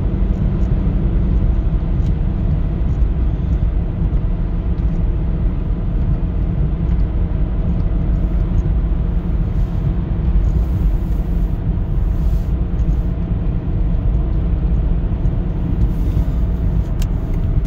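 An Aston Martin cruising at steady speed, heard from inside the cabin: a constant low rumble of engine and tyre noise.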